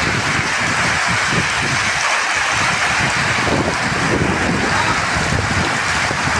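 Steady rain falling, an even hiss with a fluttering low rumble underneath.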